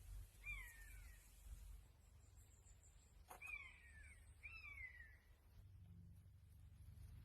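Faint animal calls: three short, high cries, each sliding down in pitch, the first about half a second in and the other two close together a few seconds later, with a single click just before the second.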